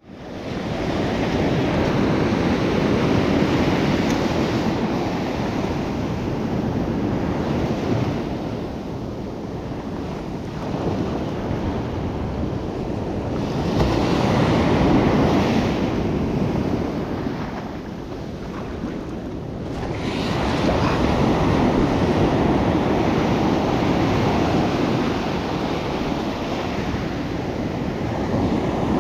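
Waves breaking and washing up a sandy beach, the rush swelling and easing every several seconds, with wind buffeting the microphone.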